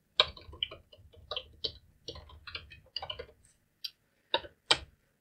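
Computer keyboard typing: a quick run of key clicks for about three seconds, then a few single keystrokes near the end.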